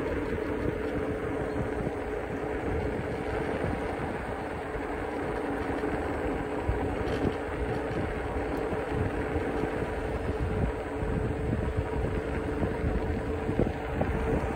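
Electric scooters riding along an asphalt road: a steady motor hum over the rumble of small wheels on tarmac, with wind noise.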